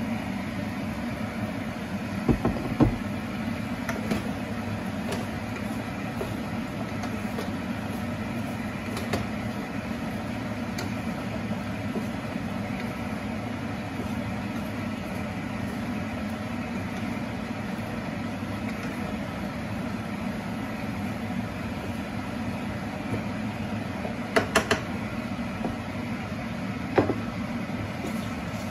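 Vegetables and meat being stir-fried in a frying pan, with a steady hum and hiss under a few sharp knocks of the spatula against the pan, a couple about two to three seconds in and a cluster near the end.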